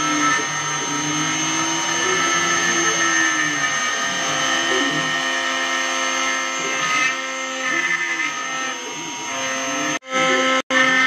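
OpenBuilds LEAD CNC 1010 router carving letters into a wooden sign: the router spindle's steady high whine with the bit cutting wood, over the stepper motors' hum, which glides up and down in pitch as the axes speed up and slow down. The sound cuts out twice, briefly, near the end.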